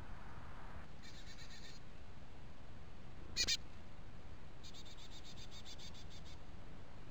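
Animal calls over a steady hiss: a short high-pitched pulsed series, one sharp call, then a longer rapid pulsed series of about six pulses a second.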